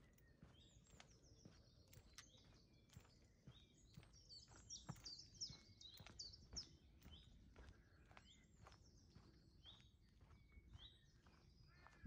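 Faint birdsong, many short high chirps and trills, busiest about four to six and a half seconds in, over soft footsteps on a path at about two steps a second.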